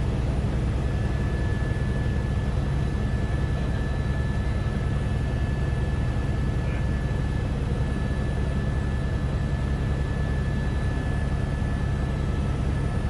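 Helicopter noise heard from inside the cabin in flight: a loud, steady rumble with a thin, steady high whine above it.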